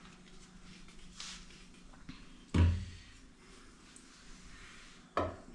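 Two dull knocks about two and a half seconds apart, the first the louder: steel kitchenware being handled and set down on a kitchen counter.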